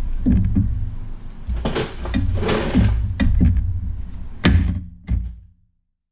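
Knocks and clunks of a Hyundai Santa Fe's front lower control arm being shifted and jostled by hand against its mounting, with handling noise in between; the sound cuts off suddenly near the end.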